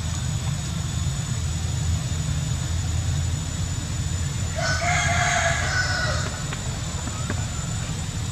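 A single drawn-out animal call with a clear pitch, about a second and a half long, a little past halfway, over a steady low rumble.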